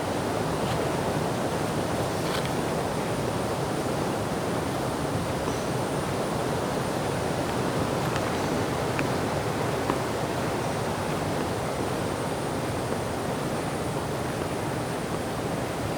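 Steady rushing of water, even and unbroken, with a few faint ticks about a third of the way in and again past the middle.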